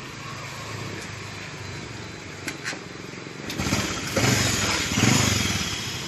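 Honda Supra X 125's single-cylinder four-stroke engine running quietly, then revved up, much louder, about three and a half seconds in. The engine is blowing white exhaust smoke.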